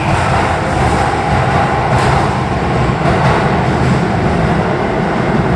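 Electric commuter train running alongside the platform of an underground station, a steady loud noise of wheels and motors.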